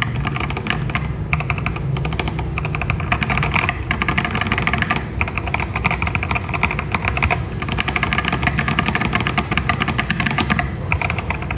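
Fast, continuous typing on a mechanical keyboard fitted with tactile switches: a dense clatter of keystrokes, each a short click of the stem striking the housing.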